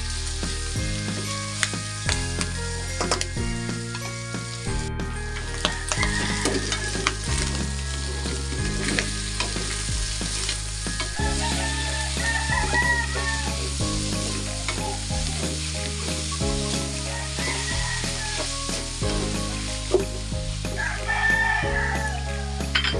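Pork belly, onions, tomatoes and peppers sizzling in hot oil in a stainless steel wok, with a spatula stirring and scraping them against the pan in short clicks and scrapes.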